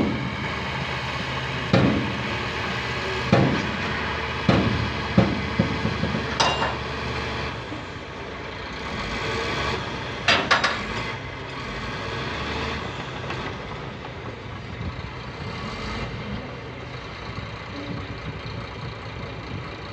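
Heavy diesel construction equipment running steadily, with a string of sharp metallic clanks over the first half, several close together about ten seconds in.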